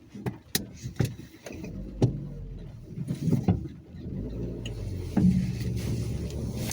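Inside a car: a few clicks and knocks, then the engine running steadily as the car gets under way, with a faint hiss of tyres on the wet road.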